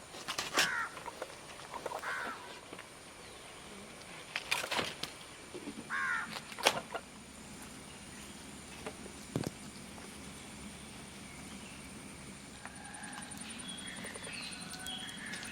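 A bird calling a few times in the first seven seconds, with a few sharp clicks among the calls, then only a faint steady background.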